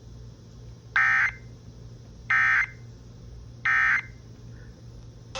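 Emergency Alert System end-of-message signal on FM radio: three short bursts of SAME digital data tones, the warbling two-tone data squawk that closes an EAS alert, each about a third of a second long and spaced just over a second apart.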